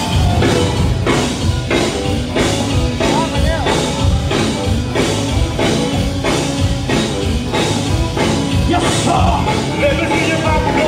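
Live gospel band playing loud with a steady beat, about two strong strokes a second, under singing voices.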